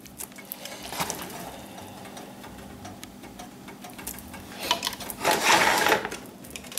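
Black plastic slotted spoon stirring sautéed bell peppers and onions in a pot, with light clicks and scrapes against the pan and a louder scraping stretch about five seconds in.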